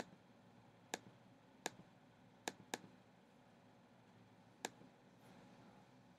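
Computer mouse button clicking six times over near silence, two of the clicks in quick succession like a double-click.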